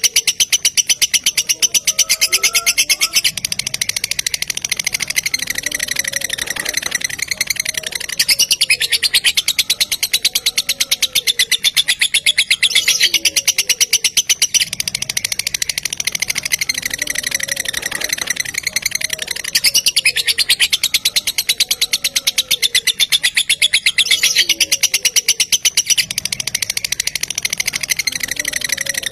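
Lovebird in a long 'ngekek': a rapid, unbroken, high chattering trill, running on in long loud stretches that ease off slightly every few seconds.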